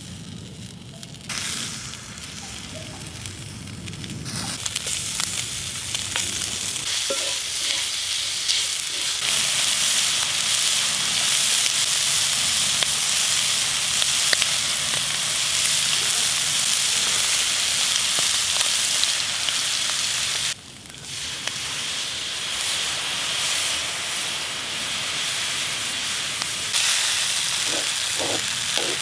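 Food sizzling and frying in a cast iron skillet over campfire coals: fat rendering and crumbled meat browning, stirred now and then with a wooden stick. The sizzle dips out for a moment about two-thirds through, then comes back.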